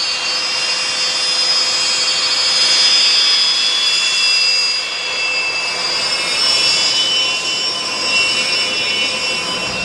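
Sukhoi Su-30MKM's twin AL-31FP turbofan engines whining as the fighter taxis. Several high-pitched tones drift slowly in pitch over a steady rush of jet noise.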